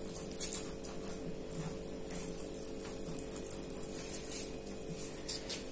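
Soft, repeated swishes of a silicone pastry brush spreading an oily herb sauce over a tortilla on parchment paper, over a steady low hum.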